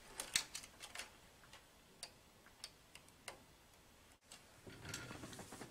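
Faint clicks of a small plastic two-pin wire connector and its leads being handled and pushed onto a circuit-board header: a cluster of clicks in the first second, a few single clicks after, and a short rustle near the end.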